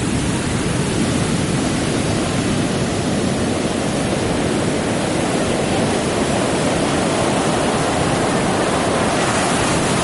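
Pacific Ocean surf breaking and washing in, a continuous steady rush with no distinct single crashes.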